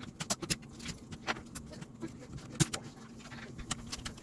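Plastic keycaps being pried off a HyperX Alloy Origins mechanical keyboard with a chopstick: a run of irregular sharp clicks and light clatter, several a second, with one louder click about two and a half seconds in.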